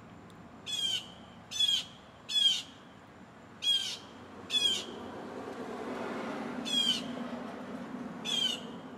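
A bird calling nearby: seven short, harsh squawks, each under half a second and spaced about a second apart, with a longer gap in the middle. A soft low rushing swells and fades beneath the calls midway through.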